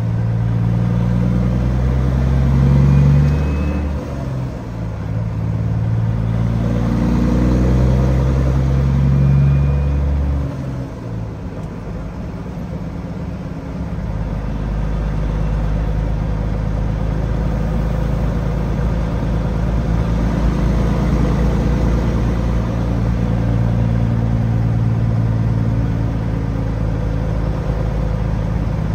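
Diesel engine of a Peterbilt 379 semi truck under way. Its pitch climbs and drops back twice in the first ten seconds or so, as the truck shifts up through the gears, then it runs steadily.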